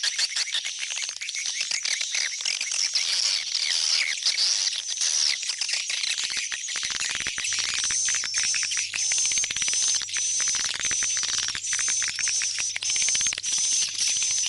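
Swiftlets twittering in a dense, continuous chatter of high chirps; about halfway through, one call starts repeating at an even pace of roughly two a second. This is the kind of 'go back home' swiftlet call played to lure birds into a swiftlet nesting house.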